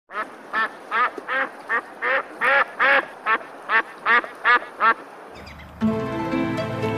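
A duck quacking repeatedly, about a dozen short quacks at a steady pace of two to three a second. The quacks stop after about five seconds, and background music begins about a second later.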